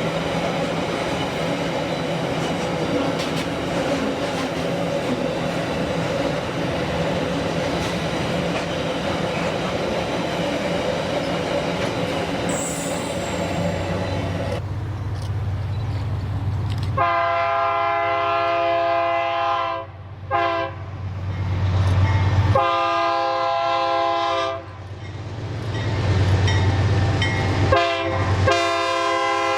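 Freight train rolling on the rails for the first half, then a diesel locomotive's multi-tone air horn sounding in four or five long blasts with short gaps, over the low hum of the engine.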